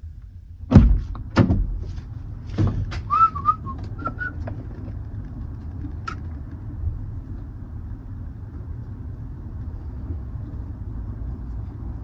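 A few heavy thunks in the first three seconds, like a truck cab door and fittings, then a short warbling whistle, over the steady low rumble of a truck engine running.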